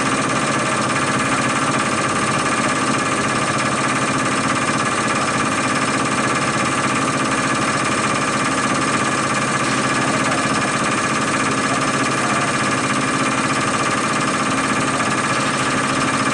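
Common rail injector test bench running an injection test at 160 MPa rail pressure and 800 rpm: the pump drive and injectors produce a loud, steady, rapid mechanical rattle with a steady whine over it.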